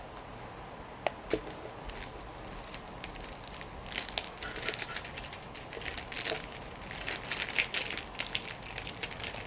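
Crunchy snack, Saewookkang shrimp crackers, being crushed, in a run of crisp crackling crunches that grow dense from about four seconds in.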